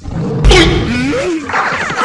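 A tiger roar, starting suddenly about half a second in and wavering for about a second. Music comes back in near the end.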